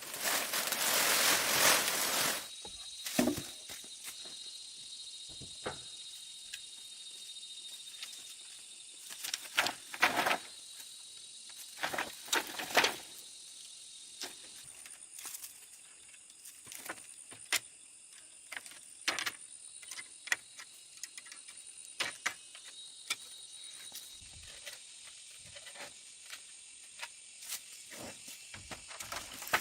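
Insects, likely crickets, chirping steadily at a high pitch, with scattered clicks and knocks of things being handled. A loud hiss fills the first two seconds.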